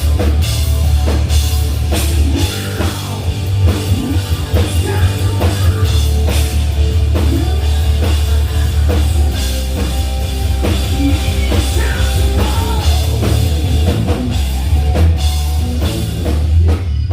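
Live hard rock band playing loudly through a PA: a drum kit pounding steadily over a heavy, booming bass, with guitar in the mix.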